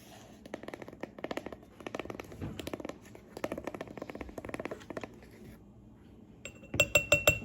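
A measuring tablespoon being filled with ground ginger: repeated scratchy scraping and rustling of the spoon in the dry spice. Near the end comes a quick run of sharp, ringing taps, about six a second, as the spoon is knocked against the dish. The taps are the loudest part.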